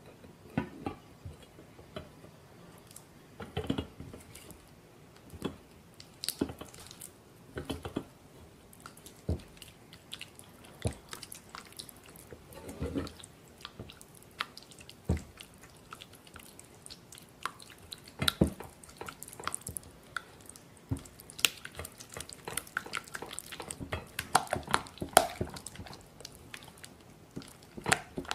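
Silicone spatula mashing and stirring soft cheese and butter in a glass bowl set over hot water, making wet squishing sounds with irregular scrapes and light knocks against the glass.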